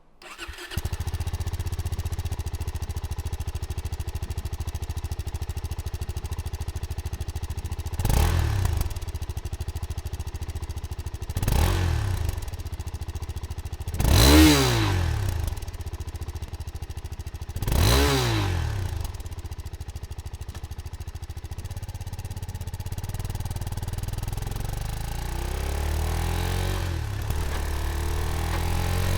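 Suzuki motorcycle engine idling, blipped up and back down four times in about ten seconds. Near the end it is eased up through the revs more gently.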